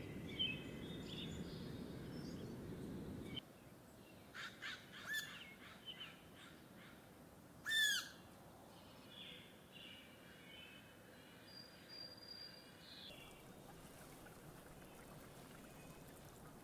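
Birds calling in scattered chirps and short trills, with the loudest call about eight seconds in. During the first three seconds a low steady rushing noise lies under the calls and then cuts off.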